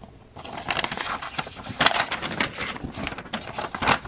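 A sheet of paper rustling and crinkling as it is unfolded and handled, starting about half a second in.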